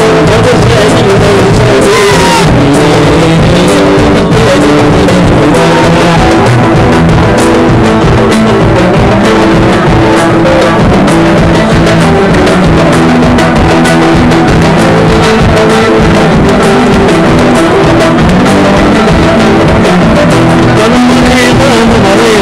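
Live band music played loud: a plucked lute-like string instrument over drums, the recording pushed close to its maximum level throughout.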